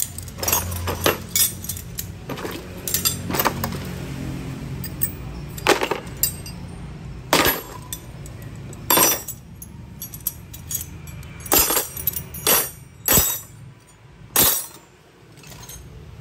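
Metal hand tools clinking and knocking against each other as they are handled and set down, a dozen or so sharp knocks at uneven intervals.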